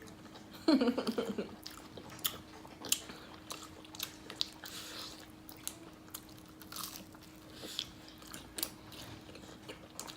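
Close-up eating sounds: a person biting and chewing crispy Popeyes fried chicken, with scattered short crunches and mouth clicks.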